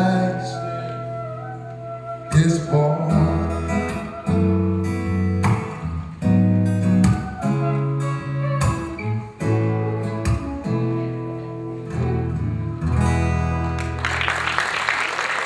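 Acoustic guitar strummed in full chords, closing out a song, with audience applause breaking in about a second and a half before the end.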